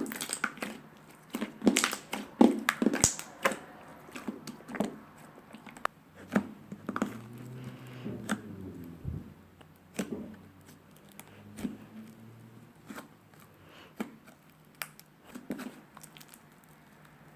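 Slime being squished and kneaded by hand: many sharp clicks and pops, thick in the first few seconds and sparser later.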